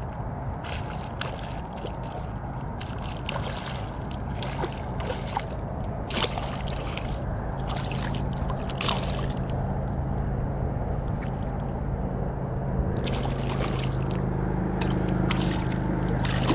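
A hooked speckled trout splashing and thrashing at the water's surface: a run of short, sharp splashes through the first half, then another cluster near the end as the fish is drawn in to hand, over a steady rush of wind and lapping water.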